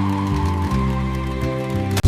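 Background music with sustained notes changing every half second or so.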